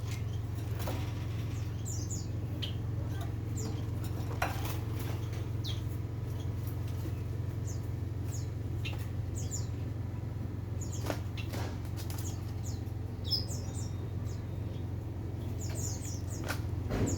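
Birds making short high chirps and squeaks, with scattered sharp taps and rustles, over a steady low hum.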